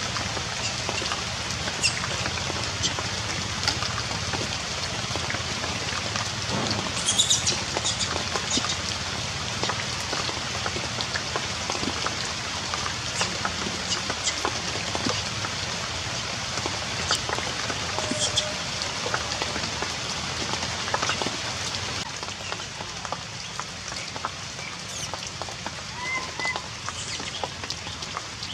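Heavy rain falling steadily, drops spattering on nearby surfaces in many sharp ticks. A brief high call is heard near the end.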